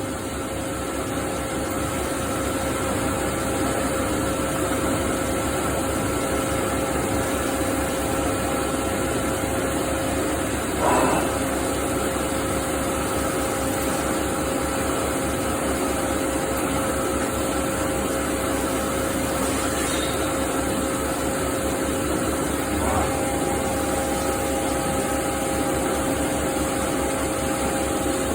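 CNC machining centre cutting SS400 steel: a steady machine hum with a few steady tones from the spindle. A short knock comes about 11 seconds in, and a lighter one about 23 seconds in.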